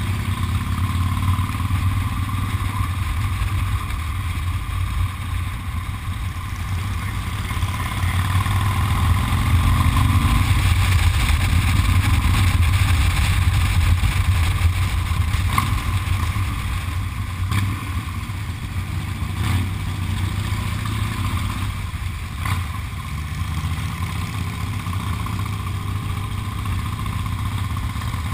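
Cruiser motorcycle engine running steadily while riding, heard from a handlebar-mounted camera with a steady rush of wind over it. It gets a little louder for several seconds in the middle.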